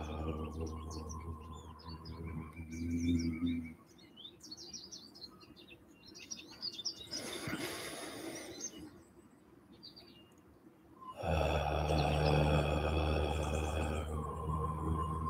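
A man's voice chanting a long, steady 'om' that ends about four seconds in. After a pause with faint high chirping and a deep breath in, a second 'om' begins about eleven seconds in.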